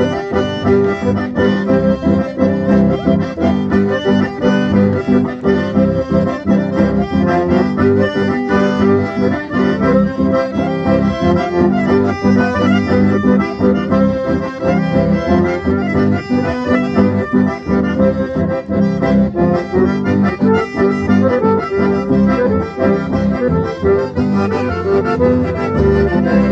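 Live folk band playing an instrumental passage: several accordions carrying the melody and chords over an electric bass line, steady and continuous.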